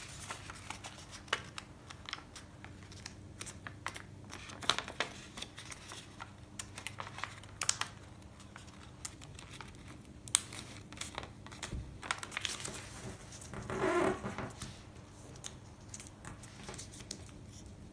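Sheet of paper being folded and creased by hand: irregular crinkles, taps and short rustles as the corners are folded inward, with a longer rustle about fourteen seconds in.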